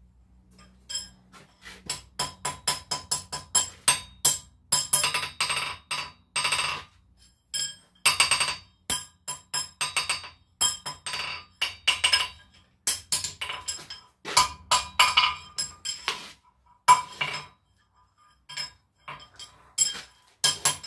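Hammer striking an anvil again and again in quick runs with short pauses between them, each blow ringing with a clear metallic tone.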